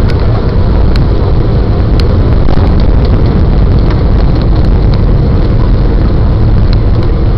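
Cabin noise of a Boeing 757 rolling out on the runway after touchdown, spoilers raised: a loud, steady rumble of engines and wheels, with a few light clicks and rattles from the cabin.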